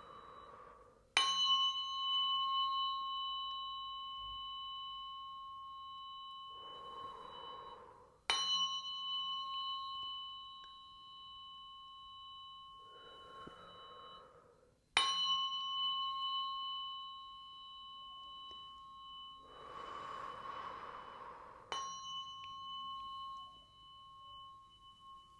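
Tuning fork struck four times, about every seven seconds, each strike ringing on as a steady high tone with higher overtones that slowly fades; the last strike is fainter. A soft hiss is heard between the strikes.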